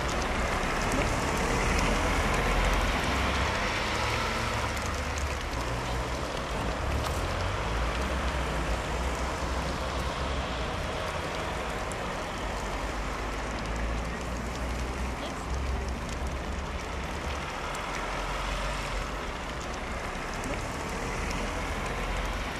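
Steady outdoor street background noise: an even hiss with a low rumble underneath, and no distinct events.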